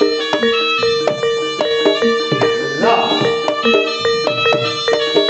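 Jaranan music on gamelan instruments: rapid struck, ringing pitched notes in a steady, driving rhythm, with one note repeating over and over.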